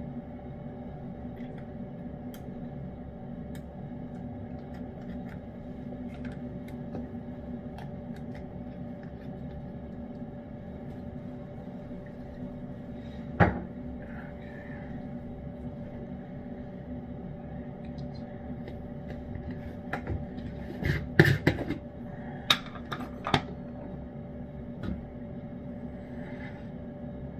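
A cat eating canned salmon pate from a dish, with faint small ticks of licking and chewing. The dish clicks once sharply about halfway through and knocks several times in a quick cluster near the end, over a steady hum.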